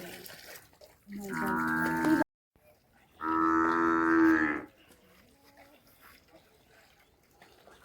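Cattle mooing: two long, steady calls, the first about a second in and the second, louder one, about three seconds in.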